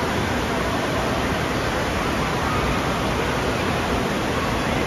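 Steady rush of running water from the slides and splash features of an indoor waterpark, an even wash of noise with no distinct events.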